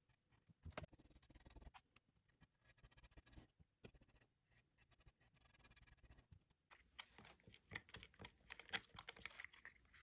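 Faint scratching and light tapping of a paintbrush working acrylic paint on a cedar board, with scattered small clicks, growing busier and louder over the last three seconds.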